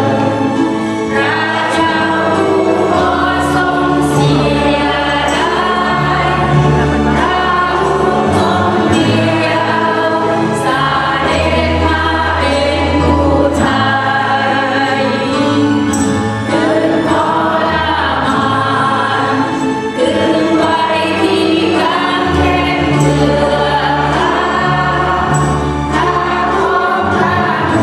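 Live Christian praise-and-worship music: a band with keyboards and electric guitar over a steady bass line, with many voices singing together and cymbal-like hits.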